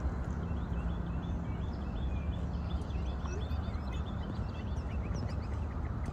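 Many small birds chirping busily in quick short notes, over a steady low rumble.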